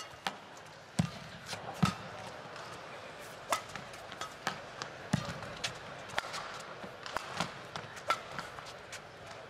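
Badminton rally: crisp racket strikes on the shuttlecock about once a second, with thuds of players' feet landing on the court mat and a few short shoe squeaks, over a quiet arena hush.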